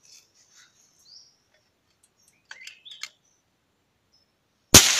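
A few faint bird chirps, then a single sharp gunshot near the end, the loudest sound, with a short ringing tail.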